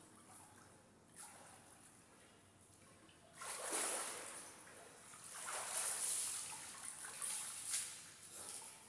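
Pool water splashing under a swimmer's strokes: quiet lapping with one small splash at first, then loud splashing from about a third of the way in that swells and eases several times.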